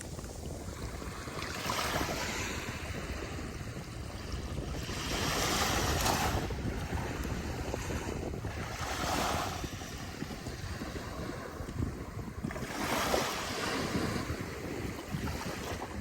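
Ocean surf breaking on a beach, the wash of noise swelling with each wave about every three to four seconds.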